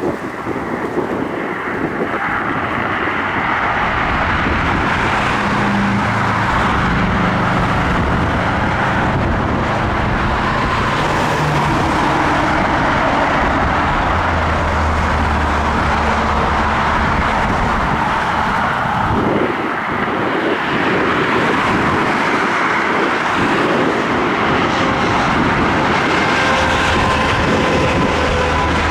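Jet airliner engines running with a steady loud rush and low rumble, with a faint turbine whine coming through in the second half.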